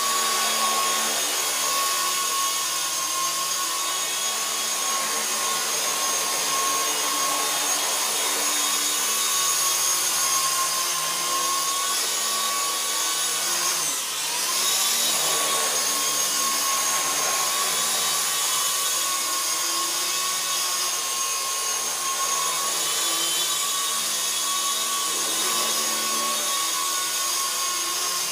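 WLtoys V912 RC helicopter's small electric main and tail motors whining steadily in flight, with the spinning rotor. About halfway through the pitch dips briefly and climbs back.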